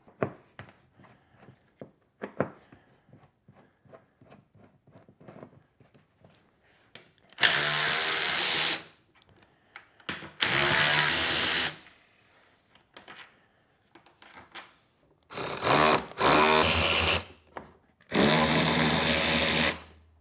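Cordless electric ratchet spinning in five short runs of a second or two each, backing out the ATV's fuel tank bolts. Before them come light clicks and taps of a screwdriver working at the tank's fittings.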